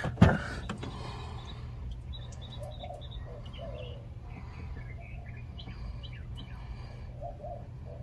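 Birds chirping faintly on and off over a steady low hum, with one sharp knock right at the start.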